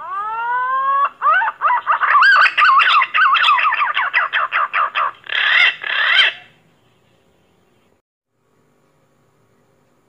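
Pink-necked green pigeon calling: a rising opening note, then a quick run of wavering, warbling notes and two louder closing notes, stopping about six and a half seconds in.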